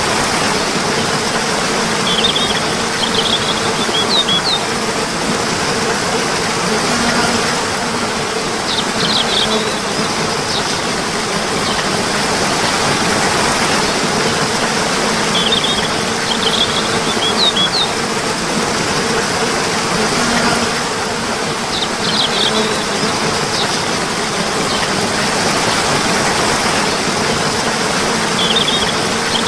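Steady rush of running water, with short bursts of high bird chirps breaking in about every six to seven seconds.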